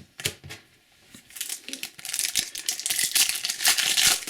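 A plastic trading card packet being torn open and crinkled by hand, a few light clicks and then a loud, continuous crackling from about a second in.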